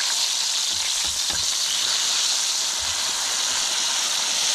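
Whole scored China rockfish frying in butter in a wok: a steady hissing sizzle, with a few soft knocks about a second in.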